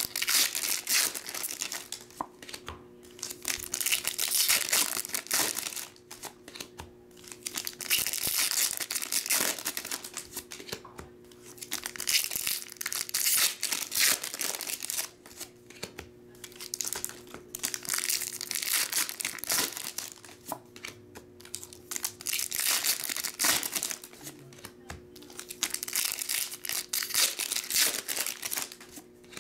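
Foil booster-pack wrappers crinkling and tearing as trading card packs are ripped open one after another. The noise comes in bouts of a couple of seconds, every few seconds.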